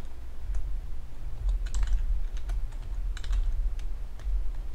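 Typing on a computer keyboard: irregular runs of keystrokes, over a steady low hum.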